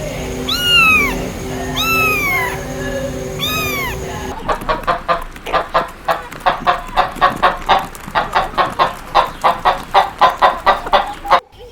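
Three high calls that rise and fall in pitch, then an abrupt change to a chicken clucking rapidly, about four clucks a second, which cuts off suddenly near the end.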